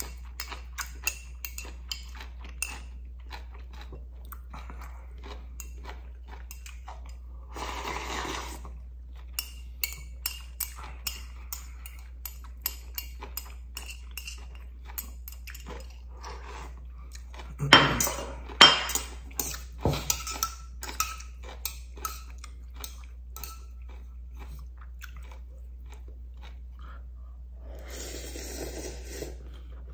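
A person eating instant ramyeon noodles with chopsticks: close chewing with many small clicks, chopsticks clinking against a stainless steel pot and bowl, and slurps of noodles. There is a slurp about 8 s in, the loudest clatter and slurping about two-thirds of the way through, and another slurp from the pot near the end.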